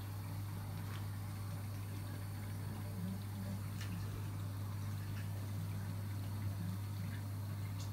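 Reef aquarium equipment running: a steady low hum of pumps with faint circulating water. A few small ticks stand out.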